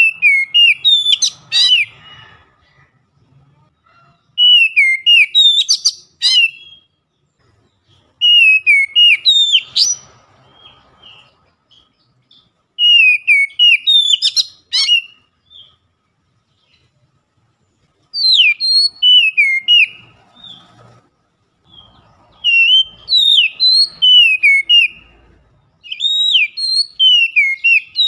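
Male oriental magpie-robin singing a loud, full song. It comes in about seven bursts of two to three seconds each, made of clear whistled notes that sweep up and down, with short pauses between the bursts.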